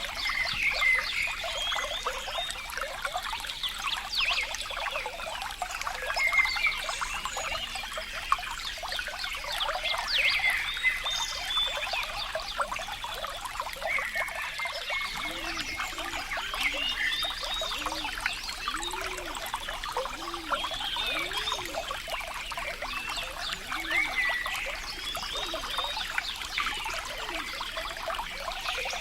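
Flowing water trickling and splashing steadily, with high chirps throughout. About halfway through, a frog croaks a series of low calls, roughly one a second, for several seconds.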